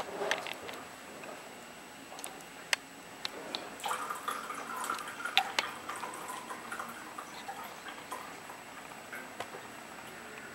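Sake main mash being squeezed to press out the sake, with liquid dripping and trickling amid scattered small clicks and taps.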